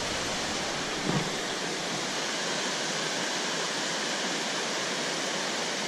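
Steady rush of flowing water from a flooded river pouring through a weir, with a faint brief thump about a second in.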